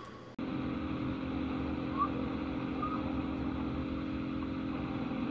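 Steady low hum and background noise of a recorded phone call, heard as narrow telephone-quality sound, with two faint short chirps about two and three seconds in.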